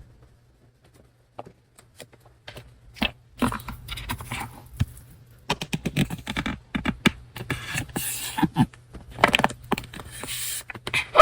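Paper stationery and packaging being handled: a run of light taps and clicks with scraping and rustling of paper, crinkling in longer stretches near the end.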